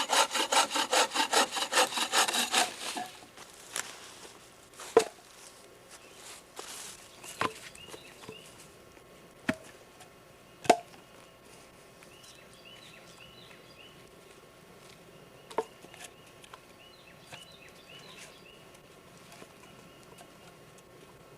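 Hand saw cutting wood in quick, even strokes, about five a second, stopping about three seconds in. After that, a few scattered sharp knocks.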